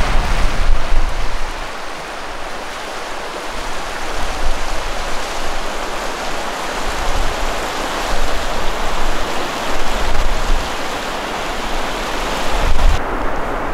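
Steady rush of river water running over a rocky riffle, with gusts of wind buffeting the microphone in low rumbling bursts.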